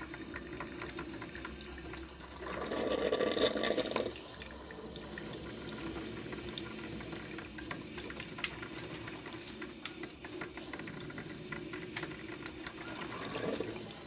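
Tefal Perfecta drip coffee maker brewing, with hot water gurgling and coffee dripping into the glass carafe over a steady hiss. It gets louder for a second or so about three seconds in, with scattered small clicks throughout.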